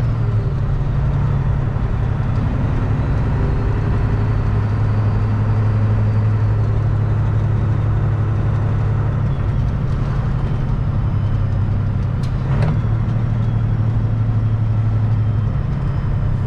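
Semi truck's diesel engine running steadily, heard from inside the cab as the truck drives in gear through a 13-speed manual transmission. The engine note is briefly broken about twelve seconds in, then carries on, and eases off near the end.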